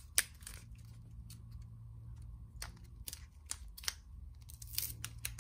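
Plastic wrapper of a footy trading-card pack crinkling and crackling in the fingers as someone tries to tear it open, with scattered sharp clicks and a few louder crackles near the end.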